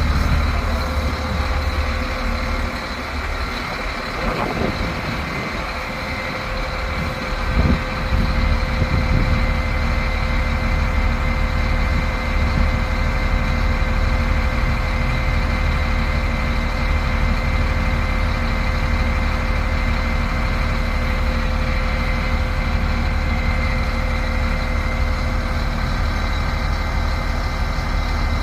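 Heavy construction machine's diesel engine running steadily with a deep rumble; it drops a little in level a couple of seconds in and picks back up about eight seconds in.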